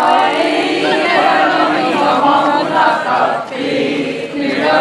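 A group of young people singing together in chorus, with a brief break a little past the middle.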